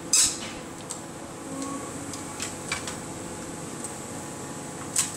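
Sharp cracks and clatters of roofing breaking as a demolition excavator tears into a brick building's roof, loudest about a quarter second in and again near the end, with smaller cracks in between. Under them runs the steady hum of the machine.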